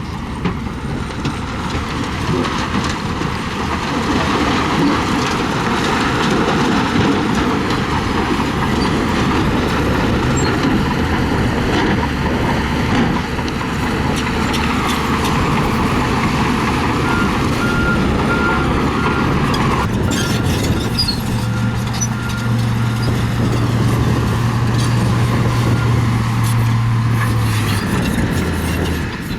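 Heavy diesel construction machinery working: engines running loud and steady with mechanical clatter, and a reversing beeper sounding in short repeated beeps in the second half.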